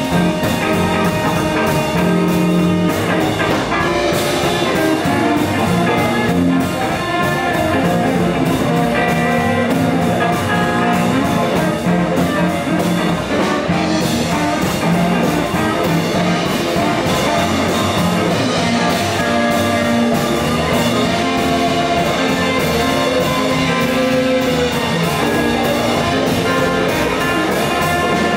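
A small live band playing an instrumental passage: electric guitar, upright double bass, drums and harmonica, steady and loud with no singing.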